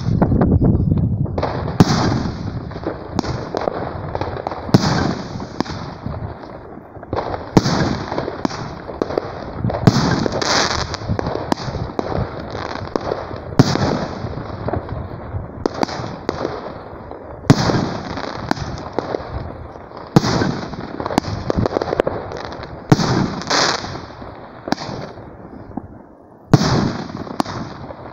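Fireworks battery (cake) firing a rapid string of shots, each sharp bang followed by a fading crackle as the stars burst. The shots come about one a second, with brief lulls about a quarter of the way through and near the end.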